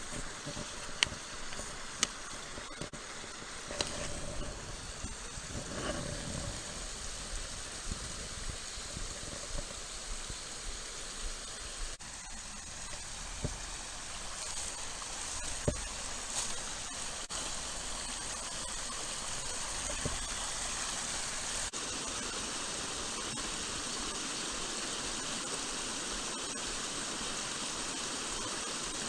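Small mountain stream running with a steady rushing noise, with a few sharp clicks and low knocks in the first half.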